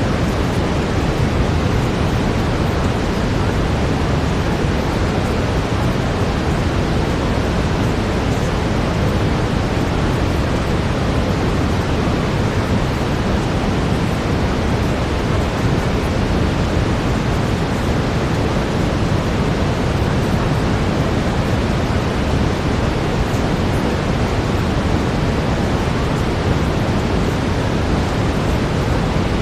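Steady brown noise: an even, unchanging rushing hiss with most of its weight in the deep end.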